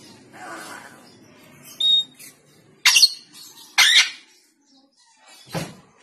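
African grey parrot calling: a short high whistle about two seconds in, then two loud, brief squawks about a second apart, and a softer call near the end.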